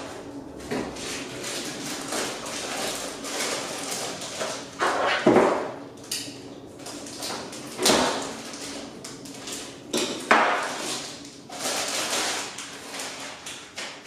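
Hands unpacking a computer power supply: the cardboard box, foam insert and its bag rustle and crinkle, with several sharp knocks as the pieces are pulled out and set down, the loudest about five, eight and ten seconds in.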